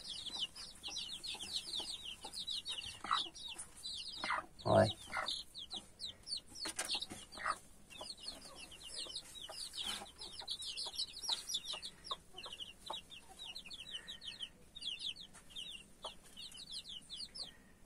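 Week-old chicks peeping without pause, a fast run of short high chirps that each slide downward, with their mother hen giving a few low clucks, the loudest about five seconds in.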